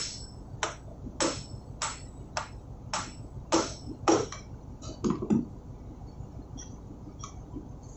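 Light hammer taps on the valve body of a ship's main-engine fuel valve, easing it down over its O-ring and bearings: about eight evenly spaced taps, roughly one every 0.6 seconds, then a couple of fainter knocks and a few soft clicks.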